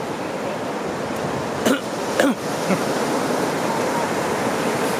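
Ocean waves breaking on the shore, a steady rush of surf. Two brief sharper sounds come about half a second apart, about two seconds in.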